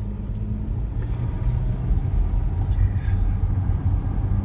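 Jeep Grand Cherokee driving along a road, heard from inside the cabin: a steady low rumble of engine and tyres.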